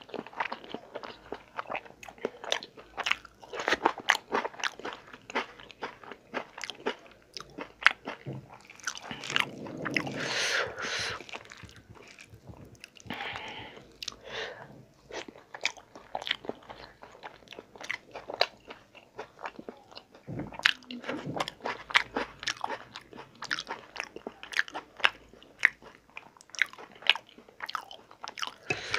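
Close-miked chewing and wet lip-smacking of a man eating pulao rice and dal by hand, a quick irregular run of sharp mouth clicks, with a longer noisy stretch about ten seconds in.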